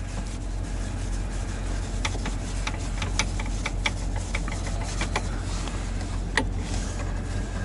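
Scattered light clicks and scrapes of a Phillips hand screwdriver turning a screw out of the truck's plastic dash trim, over a steady low hum.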